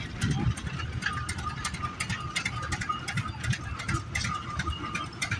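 Wind buffeting the microphone, with an irregular crackle of sharp clicks running through it, typical of the faulty recording the uploader apologises for.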